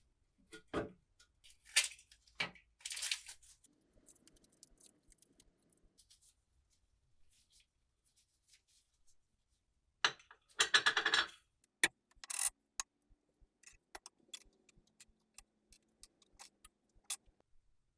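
Parts of a vintage oil lamp being handled and worked by hand: scattered light clicks and knocks, with a brief scraping rub about three seconds in and a longer one about ten seconds in.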